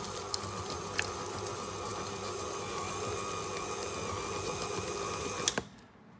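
Electric stand mixer running steadily, its flat beater turning through cookie dough with chocolate chips. The mixer stops with a click about five and a half seconds in.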